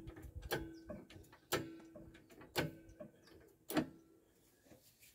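Hydraulic trolley jack being pumped to lift the van: four knocks about a second apart, each with a brief ringing tone, as the jack takes weight off the front wheel.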